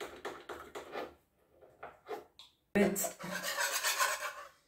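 A metal spoon scraping pistachio paste out of a small glass jar in quick repeated strokes. After a short pause, a longer, louder scraping rub as the saucepan with its whisk is moved off the electric hotplate.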